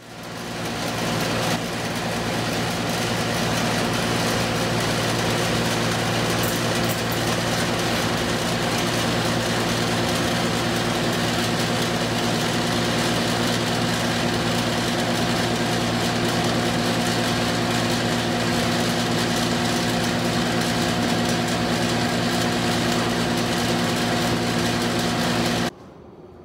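Electric box fan in a window running: a steady motor hum over an airy whir. It swells up over the first second or so and cuts off abruptly near the end.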